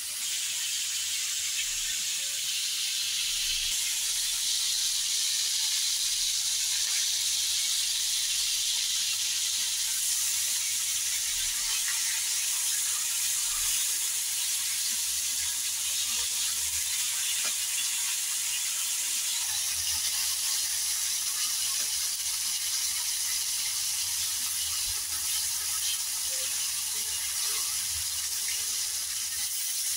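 Marinated mutton boti kabab skewers sizzling steadily in oil on a hot griddle.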